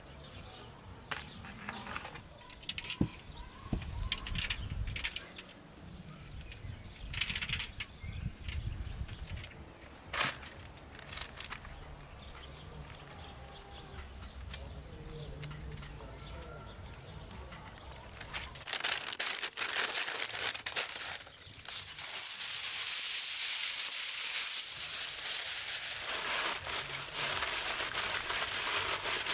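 Scattered light taps and knocks from handling a raw turkey, then, about two-thirds of the way in, a long stretch of loud, continuous crinkling as baking paper is folded around the turkey in a roasting pan.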